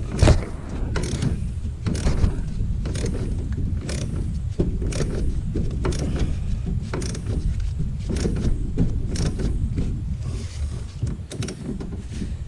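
Socket ratchet wrench being worked back and forth on a bolt, with sharp clicks about once or twice a second over steady low-pitched noise.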